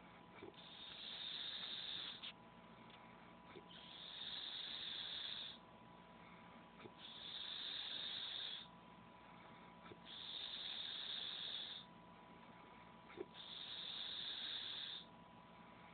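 A man snoring loudly in deep sleep, a long rasping snore about every three seconds, five in all, with quieter breaths between.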